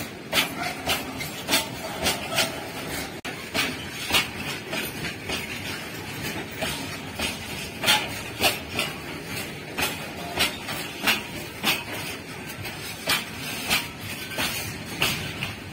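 Freight train of open box wagons rolling past at close range: steel wheels clack sharply over the rail joints, often in quick pairs, about once or twice a second over a steady rumble.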